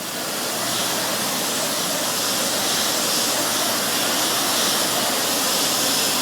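High-pressure water jet spraying steadily, a loud even hiss that builds up over the first second and then holds, as graffiti is washed off a train.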